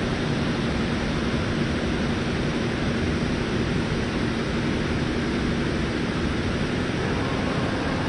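Steady rushing noise of falling water from a waterfall, even and unbroken, with a faint steady hum underneath.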